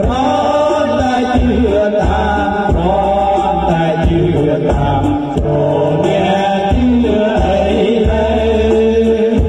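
Loud music: a bending melody line over heavy bass notes.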